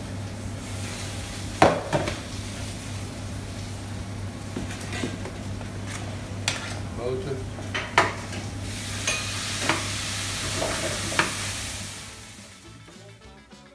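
Spinach and butter sizzling in a stainless frying pan, with several sharp metal clinks of a spoon or ladle against the pan. The sizzle grows brighter as liquid is ladled in, then dies down near the end.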